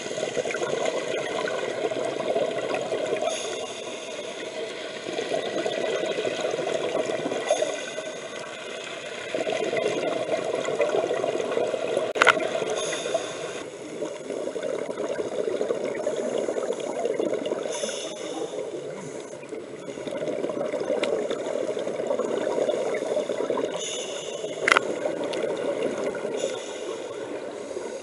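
Underwater scuba breathing: exhaled bubbles gurgling from the diver's regulator in swells about every four to five seconds. Two sharp clicks, about twelve and twenty-five seconds in.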